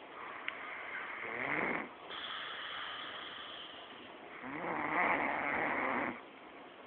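A man snoring loudly: two long snores about three seconds apart, with quieter breathing between.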